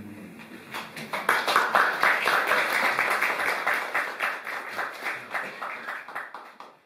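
The arpa's (Paraguayan harp's) last note dies away, then audience applause starts about a second in and is cut off abruptly near the end.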